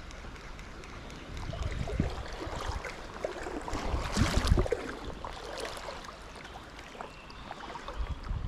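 Water sloshing and splashing around a wader's legs as he steps through a shallow river, with the river running over a riffle. The splashes are heaviest about two seconds in and again around four to four and a half seconds in.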